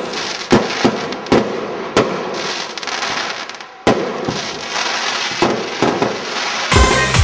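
Fireworks bursting and crackling: a run of sharp bangs spaced irregularly over a steady crackle, with a lull and then a loud bang about four seconds in. Dance music with a steady beat comes in near the end.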